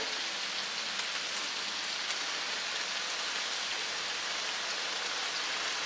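Bacon frying on a Blackstone steel flat-top griddle: a steady sizzle of spitting fat.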